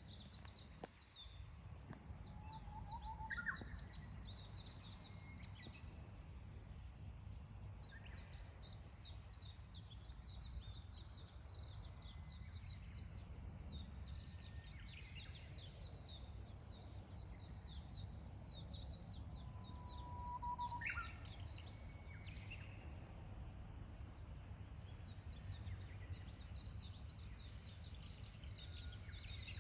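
Japanese bush warbler singing its 'hoo-hokekyo' song twice, a long low whistle that leaps into a quick higher phrase. Other small birds keep up a dense high chirping, over a steady low rumble.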